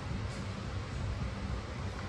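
Steady low rumble with a faint hiss: shop background noise with no distinct event.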